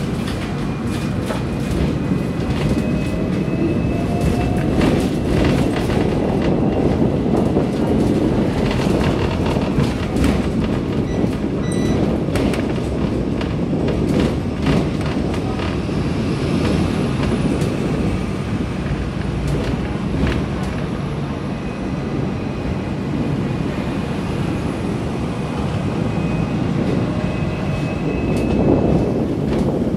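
Hong Kong double-decker tram running along its track, heard from on board: a steady rumble of wheels and motor with frequent clicks and clatter from the wheels on the rails, and a faint high whine that comes and goes.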